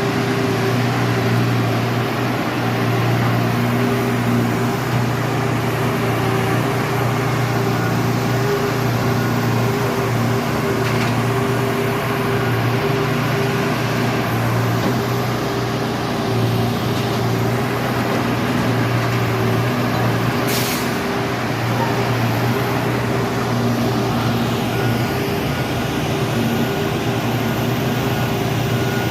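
Diesel engines of railroad track-maintenance machines running steadily, a constant low drone, with one sharp click about twenty seconds in.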